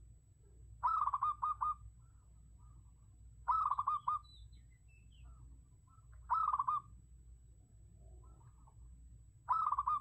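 Zebra dove cooing: four bouts of quick staccato notes, each bout under a second, about every three seconds. Faint chirps of other birds come in between.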